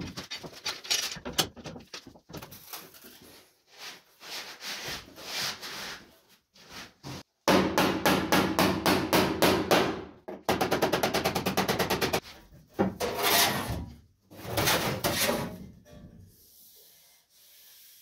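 Hammer blows on sheet metal being folded into a box over a length of angle iron. Scattered strikes at first, then two long runs of rapid blows in the middle, trailing off near the end.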